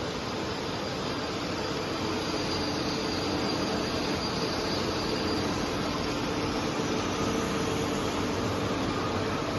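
Atal 430B bandsaw machine running steadily: an even mechanical hum with a few faint steady tones in it, growing slightly louder over the seconds.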